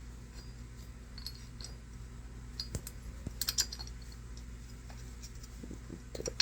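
Small screws and a metal adapter plate being handled and fitted by hand: scattered light clicks and scrapes, with a cluster of louder clicks about three seconds in and a few more near the end.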